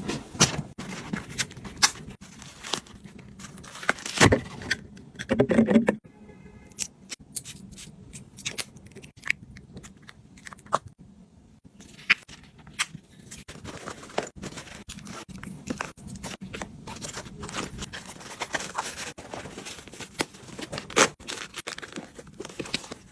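Items being handled and set down by hand: scattered clicks, taps and short scrapes and rustles, with a louder cluster about four to six seconds in.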